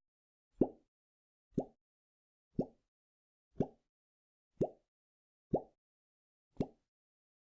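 Pop sound effect repeated seven times, about once a second: each a short plop that sweeps quickly upward in pitch, identical each time, with silence between.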